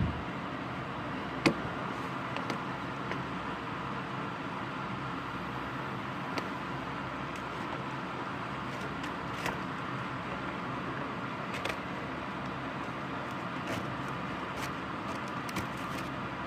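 Steady rain with scattered sharp ticks of drops striking something hard, the loudest about a second and a half in.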